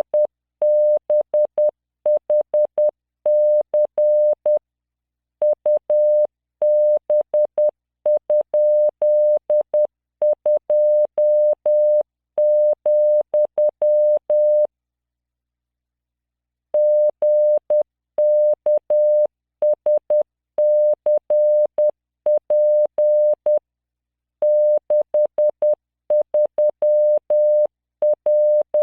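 Computer-generated Morse code (CW) practice tone at 600 Hz, keyed at 10 words per minute in random five-character groups. There are short gaps between groups and a pause of about two seconds about halfway through.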